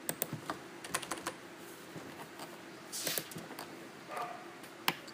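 Computer keyboard and mouse clicking: scattered, irregular clicks, with a brief hiss about three seconds in.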